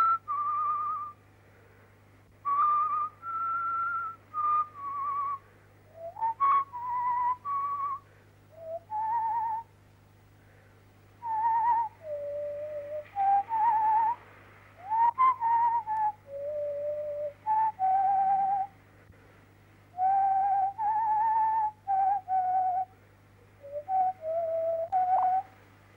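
A whistled melody: a single pure-toned line of held notes with slight wavering and short slides, moving between higher and lower pitches in short phrases broken by pauses, over a steady low hum.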